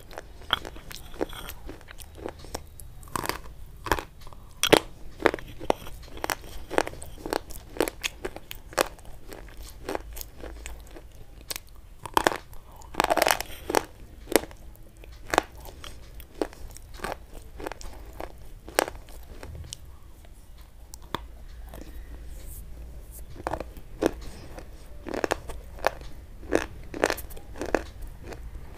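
Close-miked crunching and chewing of white chalk sticks: a stream of sharp, crisp crunches as pieces are bitten off and ground between the teeth. The crunches thin out for a few seconds about two-thirds of the way through.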